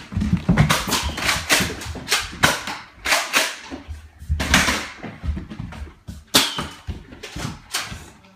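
A fast, irregular run of sharp clacks and thumps from a Nerf fight: toy blasters firing and feet pounding on a hardwood floor.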